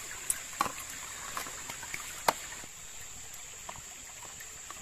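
Wood fire crackling under a pot of bamboo shoots simmering in coconut milk: scattered sharp pops and clicks, the loudest about two seconds in, over a steady high hiss.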